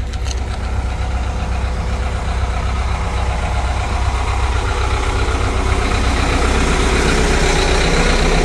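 Engine of a homemade ride-on garden-railway locomotive running steadily, a low rumble that grows slightly louder over the second half, with the air brakes charged and chocks removed, ready to move off.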